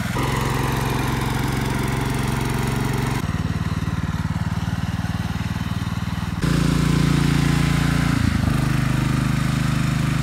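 Cub Cadet garden tractor engine running steadily under load as it pulls a one-bottom plow through wet ground. The sound changes abruptly about three seconds in and again about two-thirds of the way through, becoming louder.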